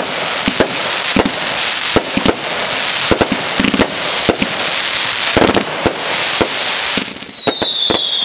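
Aerial fireworks bursting: many sharp pops and bangs over a steady hiss of burning sparks. About a second before the end, a falling whistle starts.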